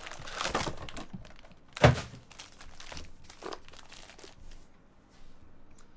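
Foil-wrapped trading card packs crinkling and rustling as they are pulled from a cardboard hobby box and stacked, with one sharp thunk just before two seconds in.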